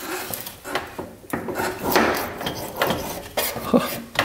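Irregular scraping and rubbing strokes of metal parts worked by hand in the hub of a 2005 Polaris Sportsman 500 ATV, where the wheel bearing turns roughly.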